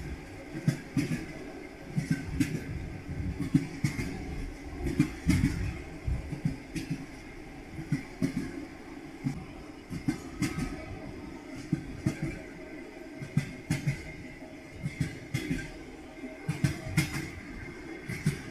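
Train wheels clacking over rail joints: sharp knocks, often in pairs or small clusters, about once a second over a steady rolling rumble.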